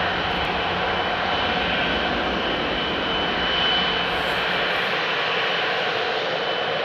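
GE90-115B turbofan engines of a Boeing 777-300ER running at low taxi thrust as the airliner taxis: a steady high whine over a broad, even rush of jet noise.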